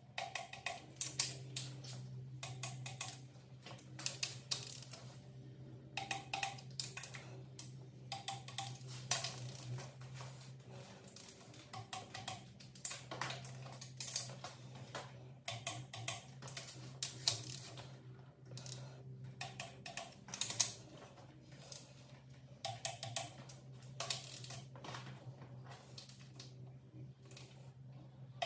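Ratchet of a click-type torque wrench clicking in short rapid runs, with brief pauses between them, as cylinder head bolts are tightened in sequence. A steady low hum runs underneath.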